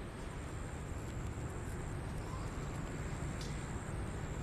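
Steady background rumble and hiss with a faint, thin, high-pitched whine held throughout and a few faint ticks.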